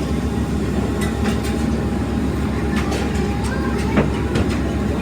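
Factory machinery running with a steady, pulsing drone, with scattered metal clinks and knocks, one louder about four seconds in.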